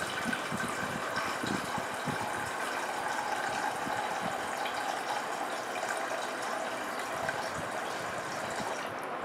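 A thin stream of water from a small pumped water dispenser pours into a stainless steel saucepan, over the steady hum of the dispenser's pump. The flow cuts off near the end.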